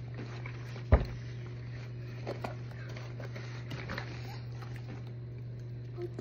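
A steady low hum in a small room, with a sharp knock about a second in and faint scattered taps and brief stifled vocal sounds.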